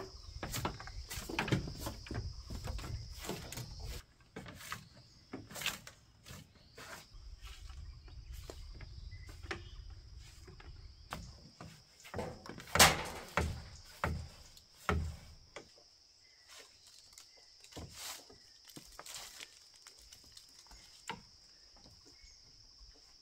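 A straw broom sweeping a floor of whole bamboo poles: brushing strokes with scattered clicks and knocks on the bamboo, and a cluster of louder knocks about halfway through. A steady high-pitched whine runs behind.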